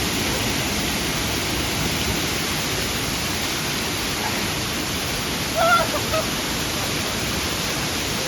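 Steady, loud rush of a waterfall's falling water. A brief voice-like call cuts in about two-thirds of the way through.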